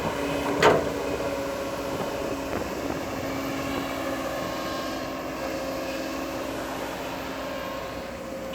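Bulldozer's diesel engine running steadily, with one sharp clank a little under a second in.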